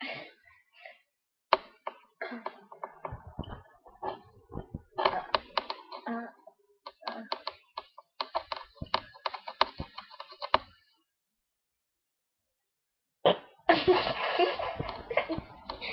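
Girls giggling and stifling laughter in short, rapid bursts, then a few seconds of quiet, then a louder outburst of laughter near the end.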